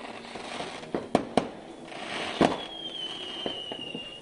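New Year's fireworks: three sharp firecracker bangs in quick succession about a second in and another loud bang near the middle, then a long firework whistle that falls slightly in pitch over the last second and a half.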